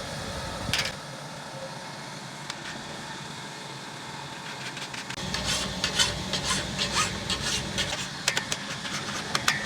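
Hand file rasping across the teeth of a sawmill saw blade, sharpening it. Quick, uneven file strokes start about halfway through; before that it is quieter, with a single click near the start.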